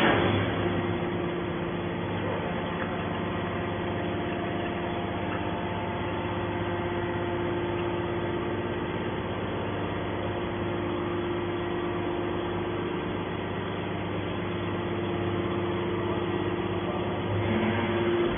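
Hydraulic scrap baler's motor and pump running with a steady hum and a constant tone. A sharp knock comes right at the start.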